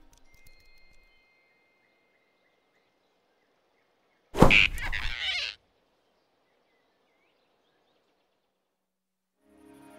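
Cartoon sound effect: one sudden loud snatch lasting just over a second, about four seconds in, as the giant rabbit grabs the flying squirrel off the branch. Near silence before and after it.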